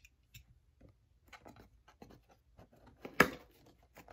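Small cardboard shipping box being handled and opened by hand: light scraping and rustling of cardboard, with one sharp, loud snap about three seconds in.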